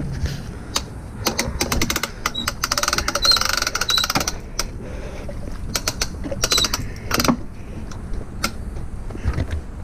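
Hand-crank boat trailer winch being cranked, its ratchet pawl clicking rapidly in three runs as the strap draws the jet ski up onto the trailer.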